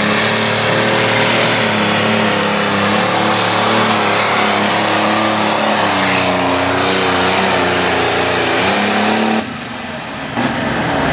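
A 640-cubic-inch Limited Pro Stock pulling tractor's diesel engine running flat out under load as it drags the weight sled, its pitch shifting about six seconds in. Its sound drops away abruptly near the end, on the pass where the tractor broke.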